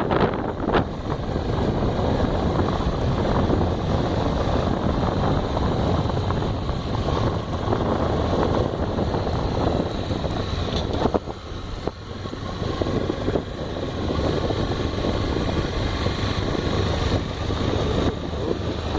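Honda XRE motorcycle running along the road, with wind buffeting the microphone over the engine; the noise drops briefly about eleven seconds in.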